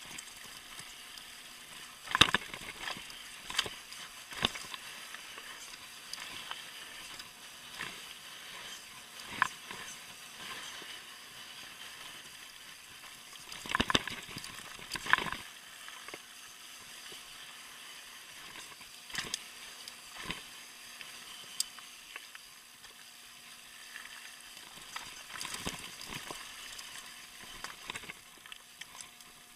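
Mountain bike descending a rocky gravel trail: a steady hiss of tyres rolling over loose stone, with sharp knocks and rattles as the bike hits rocks. The biggest knocks come about two seconds in and around fourteen to fifteen seconds.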